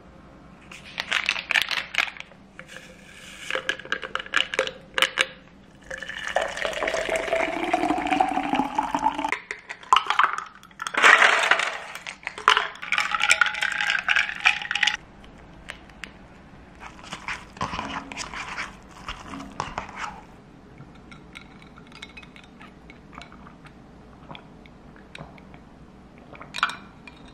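A kombucha powder stick packet torn open and emptied into a tall glass, then water poured in about six seconds in, its pitch rising as the glass fills. The drink is then stirred, with clinks of ice and spoon against the glass.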